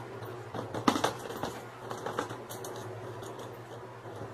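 Small irregular clicks and taps of tools and parts being handled on a workbench, over a steady low hum.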